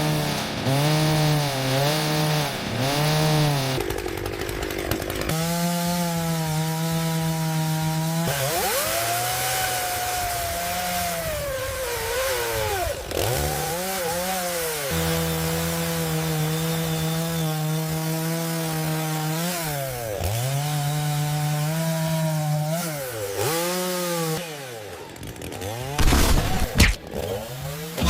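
Chainsaw cutting wooden pallet boards, its engine note holding at full throttle, then dipping and recovering repeatedly as the chain bites into the wood. A few sharp knocks near the end.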